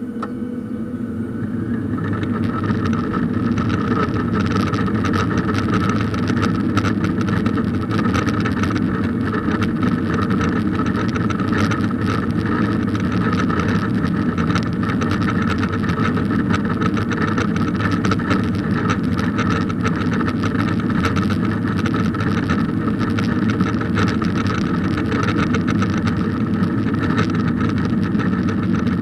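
Boeing 737-800's CFM56-7B jet engines heard from inside the cabin, spooling up over the first two seconds and then running steadily with a high whine over a deep rumble and constant rattling, as on a takeoff roll.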